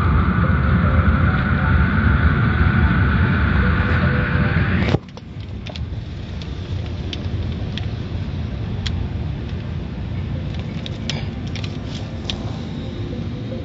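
Loud steady rushing noise that cuts off abruptly about five seconds in. Then, heard from inside a car going through a car wash, a quieter steady rumble with scattered ticks of water hitting the windows.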